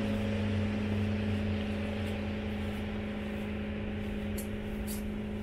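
An engine running steadily: a constant low drone that holds one pitch throughout.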